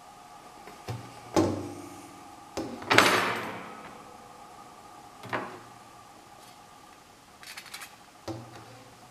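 Perforated metal sieve plates of a homebrew mash system being moved and set down, clanking against each other and the table several times. Each clank rings briefly; the loudest, about three seconds in, rings on for nearly a second. A light metallic rattle comes near the end.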